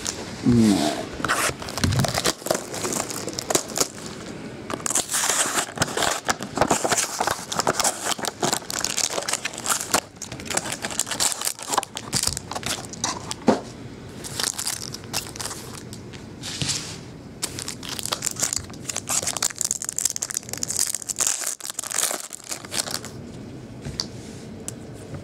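Clear plastic shrink-wrap being torn and crinkled by hand as sealed baseball card packs are unwrapped, a continuous run of crackles and rustles.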